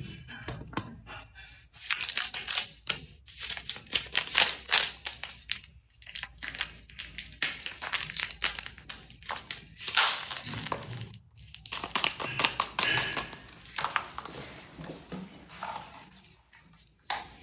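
Medicine packets crinkling and tearing as they are handled and opened, in irregular clusters of crackles with short pauses between them.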